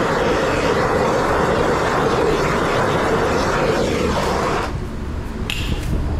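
Handheld gas torch burning with a steady rushing hiss as it heats the plastic bumper cover to soften it. The hiss stops suddenly about four and a half seconds in, followed by a few light clicks and a brief high squeak.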